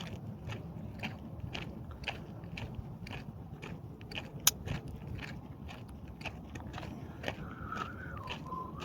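Footsteps of a person walking, about two steps a second, each step a short sharp crunch. A faint wavering tone comes in near the end.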